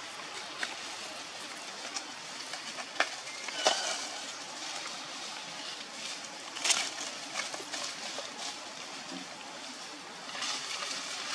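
Leaves rustling and twigs cracking as a monkey moves through leafy branches, over a steady outdoor hiss. Several sharp cracks come through, the loudest a little past the middle.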